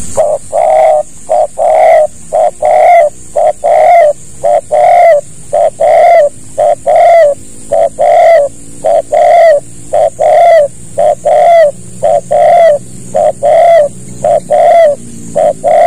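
Spotted dove (tekukur) cooing: a fast, steady run of short repeated coos, about two a second.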